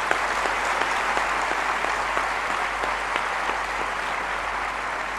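Large audience applauding steadily, slowly dying down.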